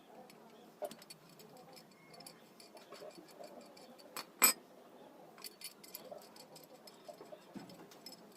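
Scattered light clinks and clicks of hard objects being handled, with one sharp, louder click about four and a half seconds in.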